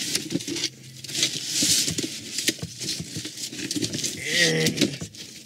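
Cardboard box being handled and opened: flaps rustling and scraping, with many small knocks and clicks.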